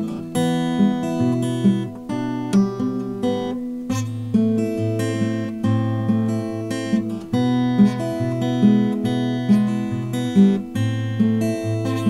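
Solo acoustic guitar music, an impromptu original piece: plucked notes ringing out and decaying over a low bass line.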